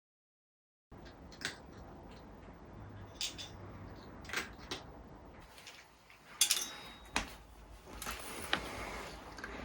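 A cat eating dry kibble: irregular crunches and clicks, with the loudest a little past the middle. The first second is dead silent.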